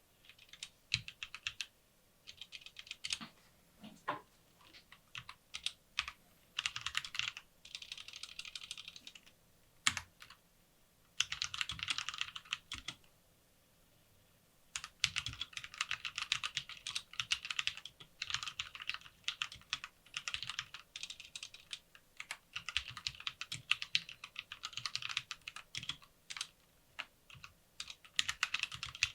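Typing on a Lofree Wanderfree keyboard: quick runs of key clicks broken by short pauses, then a long unbroken stretch of fast typing through the second half.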